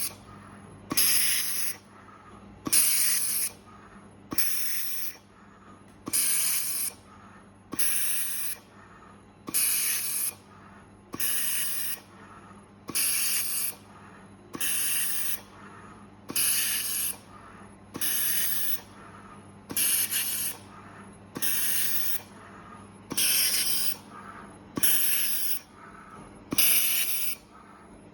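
Automatic laser welding machine making repeated welds: a short hissing burst about every second and three-quarters, over a faint steady hum.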